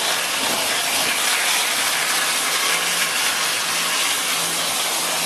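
Garden hose spraying water, its end narrowed by a finger, onto a pleated hot tub filter cartridge to wash the gunk out of the pleats. A steady, even hiss of spray.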